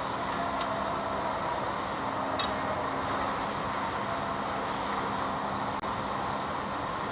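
Kubota D905 three-cylinder diesel engine running steadily, an even hum with a couple of faint ticks.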